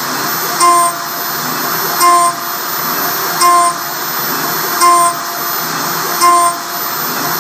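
CNC machine milling along a trochoidal toolpath: a steady whir broken about every 1.4 seconds by a short, louder pitched whine as the cutter engages the material on each loop.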